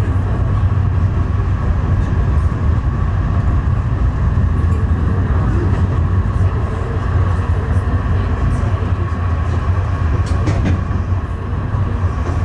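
Tram running along its tracks, heard from inside the car: a steady low rumble with a faint steady whine, and a couple of brief clicks about ten seconds in.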